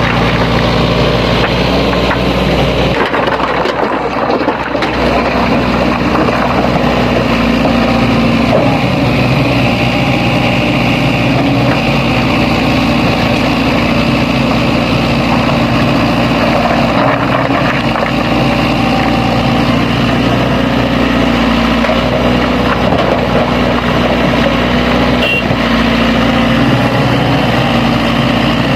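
Diesel engine of a Sany SY75C excavator running steadily under working load, its pitch shifting now and then as the hydraulics are worked.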